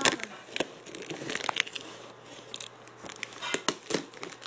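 A mail package being torn open by hand: the packaging crinkling and crackling, with irregular sharp rips.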